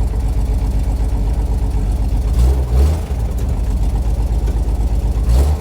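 1980 Jeep Cherokee Chief's AMC engine running at a low, steady idle, revving up briefly about halfway through and again just before the end.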